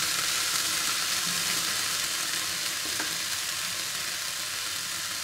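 Sprouted beans, green peas and paneer sizzling in hot oil in a non-stick frying pan, stirred with a spatula at first, with a steady hiss that eases slightly near the end. A faint click about three seconds in.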